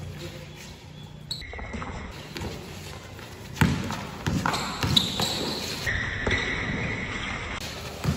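Basketball game in a gym: a ball bouncing on the court floor and sharp thuds of play, loudest about three and a half and five seconds in, echoing in a large hall. Two held high squeal-like tones come in, one near the start and a longer one past the middle.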